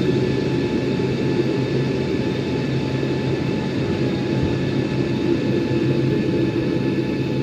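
Passenger jet engines running steadily: a deep rumble with a thin whine of several high tones layered over it, holding an even level without rising or falling.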